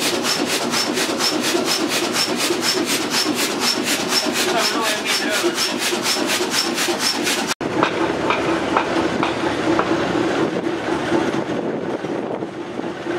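Hot-bulb engine running in a boat's engine room, with an even, rapid clatter of about five beats a second. After a sudden cut about seven and a half seconds in, a steadier engine sound with less clatter follows.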